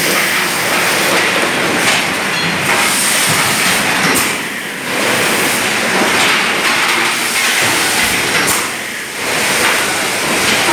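Machinery of a mineral water bottling line running, a steady mechanical clatter with hiss. It eases off briefly twice, about four and a half seconds apart.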